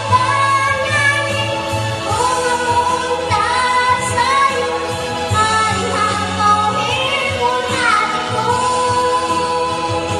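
A young girl singing a slow melodic song into a microphone, over instrumental accompaniment, holding long notes with slides between them.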